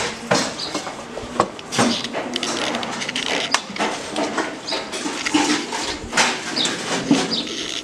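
Pigeons stirring and flapping, with a stream of rustling and clattering noises and short high chirps scattered through.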